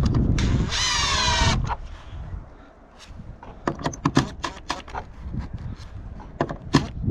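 Cordless Makita impact driver running briefly as it drives a screw through a plastic gutter hanger into the fascia board; its whine falls in pitch and stops about a second and a half in. Scattered sharp clicks and knocks follow.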